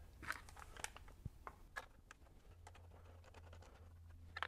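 Faint, scattered light clicks and taps as the side cover of a cordless pruning chainsaw is handled and fitted back over the sprocket and bar, with a slightly louder click near the end.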